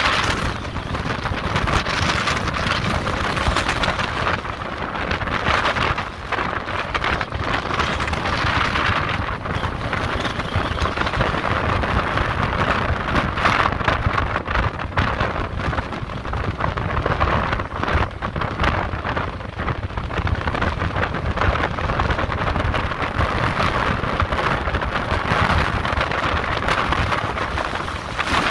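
Gale-force wind buffeting the microphone over the continuous rush of heavy storm surf, with big waves breaking against a sea wall and swelling and easing every few seconds.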